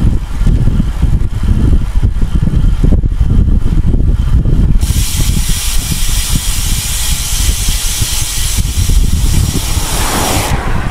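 Wind buffeting the microphone of a camera riding on a racing bicycle, a heavy fluttering rumble. About five seconds in, a loud steady hiss joins it and cuts off suddenly shortly before the end.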